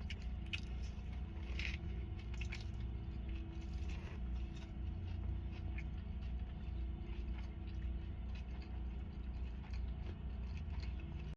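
A person eating: chewing with small crunches and clicks, over a steady low hum.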